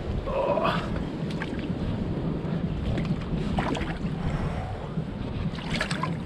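Wind buffeting the microphone over sea water sloshing in a rocky pool, with a few short splashes or knocks.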